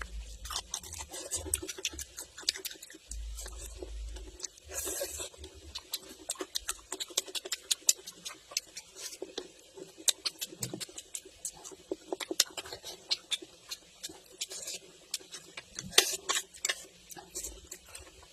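Close-miked eating sounds of spicy hot pot noodles: wet chewing and slurping, with a rapid, irregular stream of small clicks and a few short hissing slurps.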